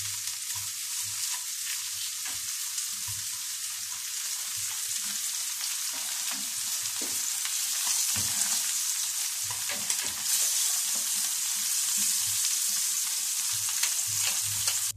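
Hot oil sizzling steadily as a cornflour-coated whole fish fries in a pan, growing louder about eight seconds in, with faint scattered clicks of stirring.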